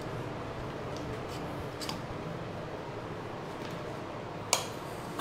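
Small clicks of metal and plastic as a potato is fitted onto a hand-cranked spiral potato cutter, with one sharp click about four and a half seconds in, over a faint steady hum.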